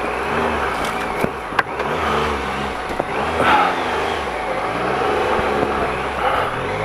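Triumph Explorer XC 1215cc motorcycle's three-cylinder engine running at low revs, its pitch rising and falling about once a second as throttle and clutch are fed in to keep traction in slippery mud. A few sharp knocks in the first three seconds.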